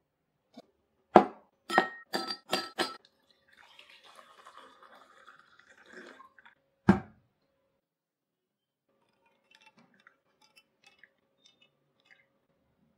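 Kitchen glassware and utensils being handled. A sharp knock comes first, then four quick ringing glass clinks, a few seconds of soft rushing noise, and a second sharp knock. Faint light ticks follow.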